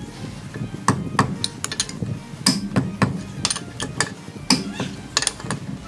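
Metal clinks and taps of an L-shaped lug wrench being fitted onto and turning a car wheel's lug nuts: a string of sharp, irregular clicks as the wheel nuts are tightened.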